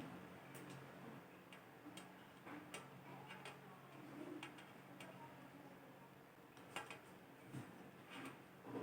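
Near silence: room tone with a faint low hum and scattered faint clicks at irregular intervals.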